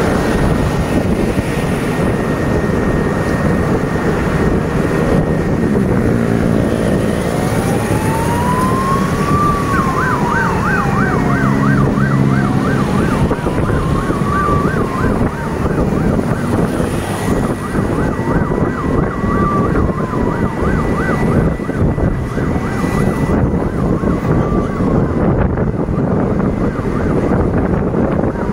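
A vehicle siren wailing, its pitch slowly rising and falling about every five seconds, starting about seven seconds in, with a fast warbling yelp for several seconds in the middle. A steady rush of road and wind noise runs underneath.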